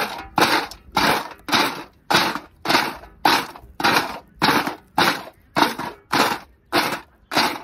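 Roasted multani mitti (fuller's earth) chunks crunching as they are pressed and broken by hand in a steel plate. The crunches are sharp and rhythmic, about thirteen of them at a little under two a second. This crisp crunch is the sign that the clay is roasted right through.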